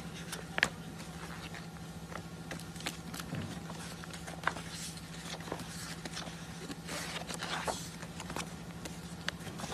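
Heavy pages of a wallpaper sample book being turned and handled: scattered clicks and a few soft swishes of paper, over a steady low hum.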